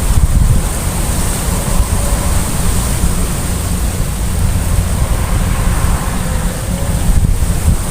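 Wind buffeting the microphone: a loud, gusty low rumble with a steady hiss above it.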